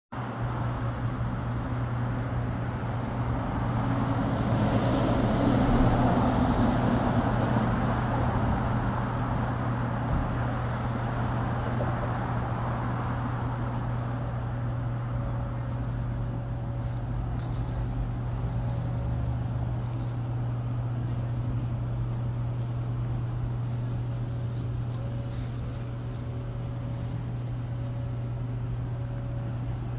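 Street traffic noise with a steady low hum, and a vehicle passing by, loudest about six seconds in.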